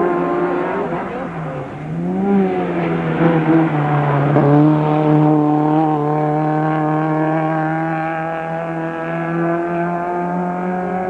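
Racing car engine running hard under load. Its pitch drops and climbs back about two seconds in, then rises slowly and steadily.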